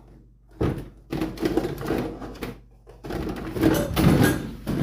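Kitchen handling noises: a series of knocks and rattles from things being moved about, as when a plastic meal prep container is fetched and set down. The knocks come thicker in the second half.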